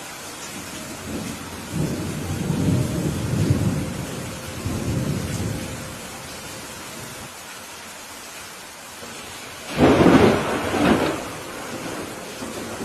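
Thunderstorm: steady rain hiss, with a low rolling thunder rumble that swells several times over the first half, then a sharp, loud thunderclap about ten seconds in, cracking twice before it fades back into the rain.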